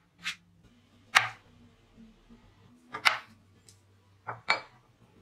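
A handful of short, sharp knocks and clacks as tools and wood are handled on a wooden workbench, the last two close together as a speed square is set against a wood block.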